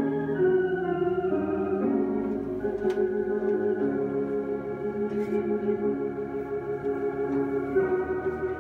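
Organ playing slow, held chords as processional music, the chords changing every second or two.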